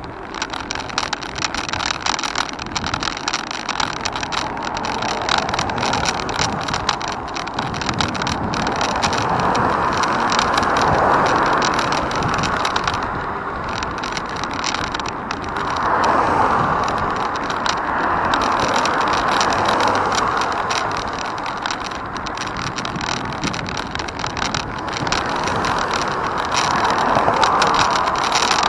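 Continuous rushing road-vehicle noise that swells and fades several times, as of vehicles passing.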